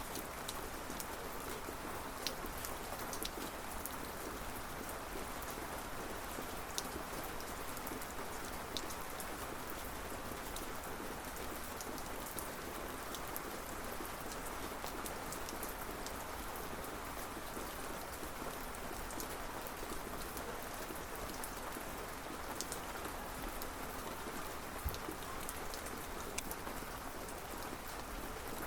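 Steady rain falling in a continuous hiss, with scattered sharp drips of individual drops striking a surface.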